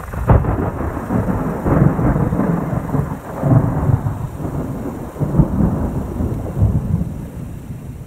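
Thunder: a sharp crack just after the start, then low rolling rumbles that swell several times and fade toward the end.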